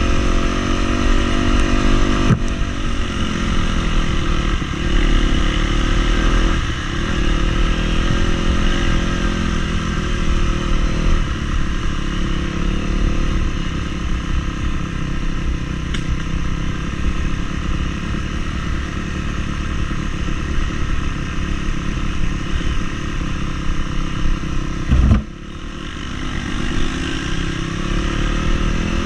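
A motor vehicle's engine running steadily under load while climbing a mountain track. About twenty-five seconds in, the engine note cuts out briefly, then rises again.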